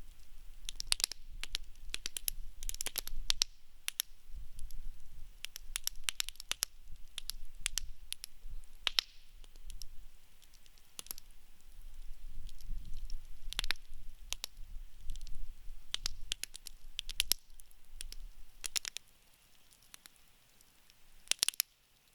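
Wood campfire crackling: irregular sharp pops and snaps over a low rumble. The rumble fades out near the end, and a last quick cluster of pops follows.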